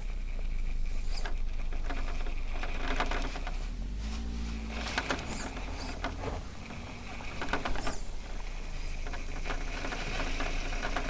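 Axial SCX10.3 RC rock crawler on its stock tires, its electric drivetrain whining while the tires and chassis scrabble and clatter over rock in clusters of clicks and rattles.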